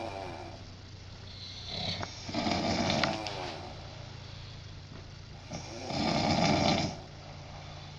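A person snoring: two loud snores about four seconds apart, each lasting about a second and a half, with quieter breathing between.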